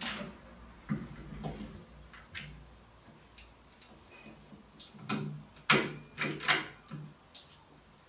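Pneumatic screen door closer being handled and fitted against its mounting bracket: scattered clicks and knocks of its parts against the bracket and door frame, with a quieter stretch and then a quick run of sharp clicks about five to seven seconds in.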